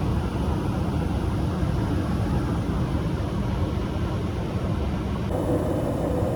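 Gas furnace running with its blower motor on: a steady low rumble of motor and moving air, with no thumps. About five seconds in, a steady hum joins it.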